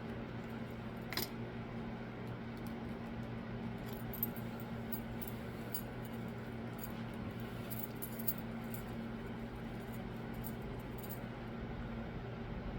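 Scattered light clicks and taps, the strongest about one, four and eight seconds in, over a steady low hum.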